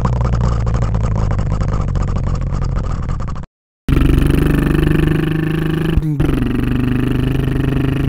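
Bulldozer's diesel engine running steadily. It cuts off briefly about three and a half seconds in, then runs on.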